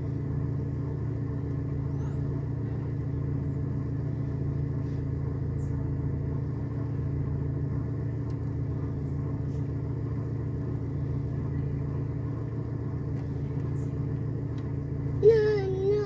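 Car engine idling steadily, heard from inside the stationary car's cabin as a low, even hum. About a second before the end, a brief loud wavering call from a voice.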